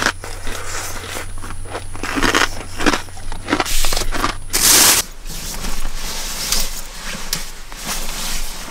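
Crinkling and rustling of a plastic snack bag being handled, in short irregular bursts, with a loud burst of crinkling about four to five seconds in.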